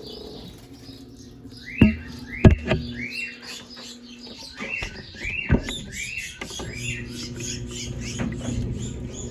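A small bird chirping over and over in short arched notes, with a low steady hum from the Brastemp Double Wash washing machine and a few sharp knocks, loudest about two and two and a half seconds in and again about five and a half seconds in.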